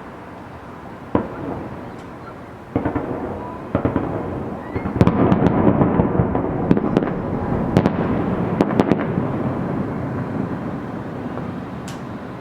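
Fireworks salute going off: a few single booms, then a dense volley of bangs and crackling with a rolling rumble that slowly fades, and a couple of faint pops near the end.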